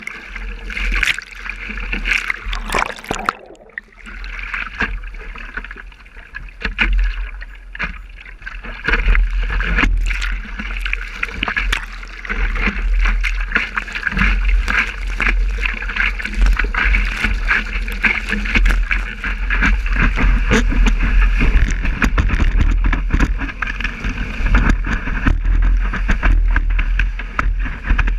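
Seawater splashing and rushing over the nose of a longboard surfboard, heard close through a board-mounted action camera, as the board is paddled and then ridden on a breaking wave. A heavy low rumble of water and wind on the microphone builds from about a third of the way in.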